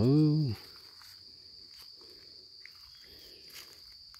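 Steady high-pitched insect drone, with faint crunchy rustles of footsteps on dry leaf litter. A man's drawn-out vocal sound fades out about half a second in.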